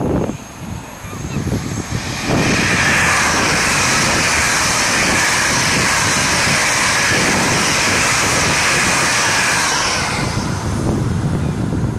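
LNER Class 801 Azuma electric multiple unit passing close at high speed: a steady rush of wheel-on-rail and air noise that comes in suddenly about two seconds in and dies away near the end.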